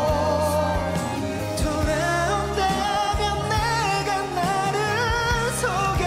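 Pop ballad music: a male singer holds long, wavering notes with vibrato over a band backing of bass and steady drum hits.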